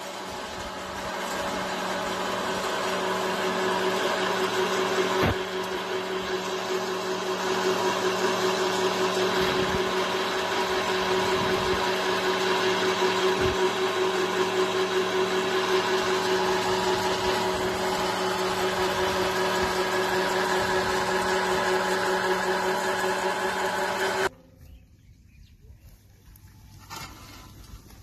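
Small electric feed pellet mill running under load, pressing corn into pellets with a steady motor hum that grows a little louder over the first few seconds. It cuts off abruptly about 24 seconds in.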